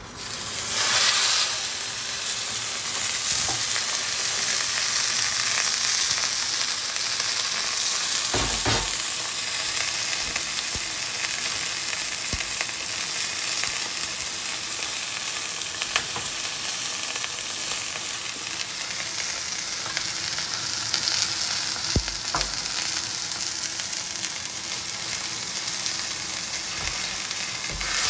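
Raw T-bone steak sizzling in hot oil in a cast-iron frying pan. The sizzle jumps up sharply as the steak is laid in, then holds steady and loud, with a few short knocks along the way.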